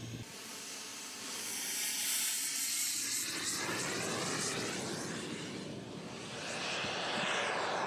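A model aircraft flying past, its engine noise swelling, fading and swelling again with a gliding pitch over a strong hiss.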